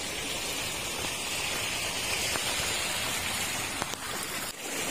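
A steady, even hiss of water.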